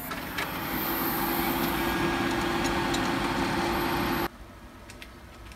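Desktop PC fans (CPU cooler, power-supply and case fans) spinning up and running with a steady whir and hum just after the computer is switched on. The sound cuts off suddenly a little over four seconds in.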